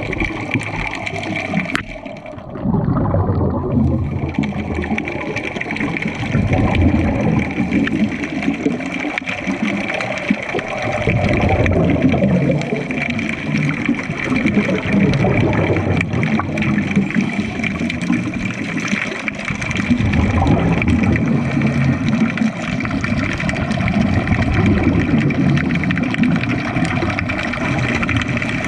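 Underwater recording of scuba divers breathing through their regulators: exhaled bubbles gurgling and rushing in repeated surges every few seconds, over a steady thin whine.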